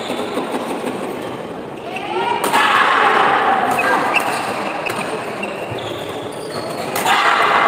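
Badminton doubles rally in a sports hall: sharp racket strikes on the shuttlecock and shoe squeaks over spectators' voices. The crowd noise swells loudly about two and a half seconds in and again near the end.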